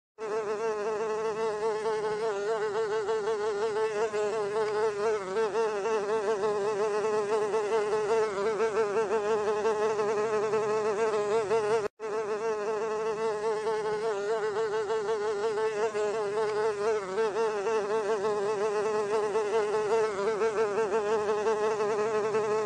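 Housefly buzzing in flight: a continuous buzz that wavers slightly in pitch. It cuts out for a split second about halfway through.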